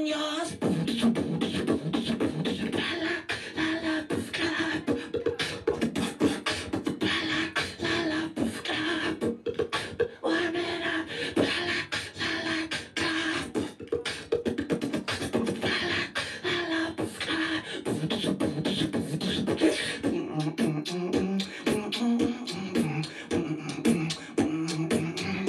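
Live beatboxing into a handheld microphone: rapid, dense vocal percussion of kick-, snare- and hi-hat-like clicks over a held vocal tone. About twenty seconds in the pattern changes, with fewer hissy highs and a lower vocal line underneath.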